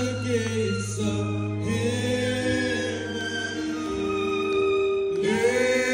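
A man singing a slow gospel song with vibrato, over long sustained accompanying chords.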